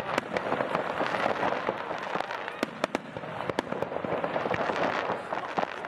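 Fireworks display: a dense, continuous crackle with many sharp pops and reports scattered through it.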